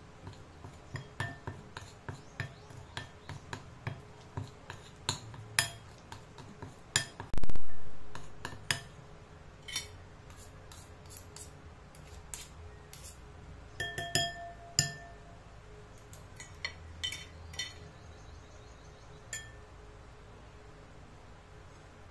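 A metal fork and spoon clinking and tapping against a glass mixing bowl while butter is mashed, in a run of quick taps about two a second, then more scattered clinks. One heavy thump, the loudest sound, comes about seven seconds in, and a couple of clinks near the middle leave the glass briefly ringing.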